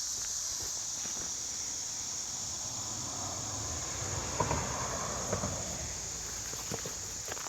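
Footsteps and rustling outdoors, scattered short steps with a louder rustle in the middle, over a steady high insect drone.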